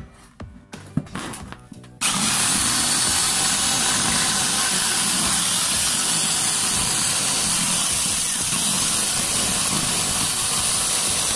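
Handheld electric power tool cutting in abruptly about two seconds in and then running steadily with a loud, dense hissing noise. Brief background music before it.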